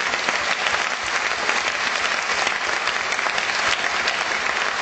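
Audience applauding, a steady dense clatter of clapping hands.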